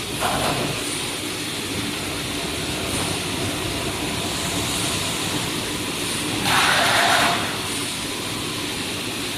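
Automatic tarpaulin welding line running with a steady machine noise, broken by short hissing bursts: a brief one near the start and a longer, louder one about two-thirds of the way through.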